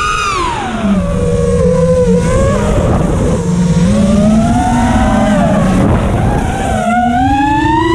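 FPV racing quadcopter's brushless motors and propellers whining, the pitch sweeping down and up several times as the throttle changes through the manoeuvres.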